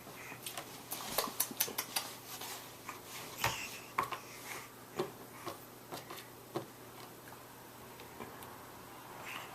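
Tongue clicks made with the mouth, practised as a click sound: a quick run of about a dozen sharp clicks, then single clicks every half second to a second, stopping a little past the middle.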